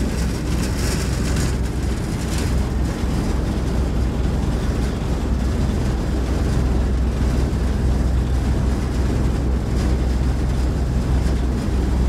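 Steady low rumble and rushing wind inside an open-sided metal cable-car cabin as it travels along its cable.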